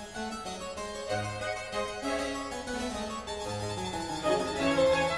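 Instrumental classical-style background music led by a keyboard, with a bass line that moves every second or so.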